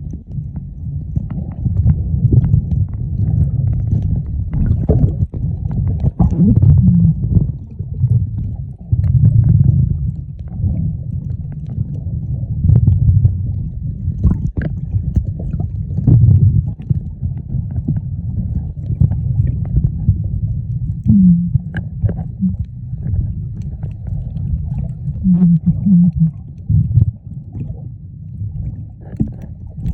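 Muffled underwater noise picked up by a submerged camera: a low rumble of moving water that swells and fades every second or two, with a few faint knocks.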